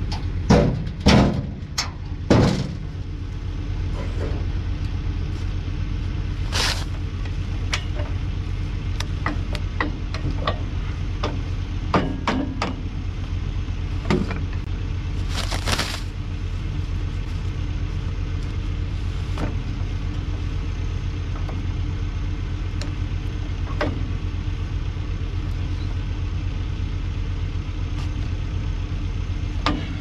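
A farm vehicle's engine running steadily. There are several sharp knocks in the first couple of seconds, then scattered clicks and a short hiss about halfway through.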